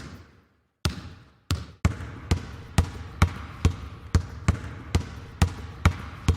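Basketball dribbling sound effect: a ball bouncing on a hard floor, each bounce with an echoing tail. It starts with a few uneven bounces, then settles into a steady dribble of about two bounces a second.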